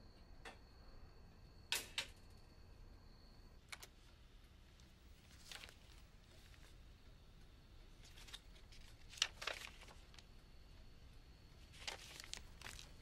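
Quiet, scattered rustles of paper being handled, with a few sharp clicks among them.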